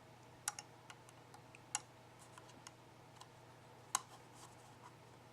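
Small sharp clicks and ticks of a SIM card being handled and pushed into the card slot of a GSM alarm unit, three louder clicks among fainter ticks, over a faint low hum.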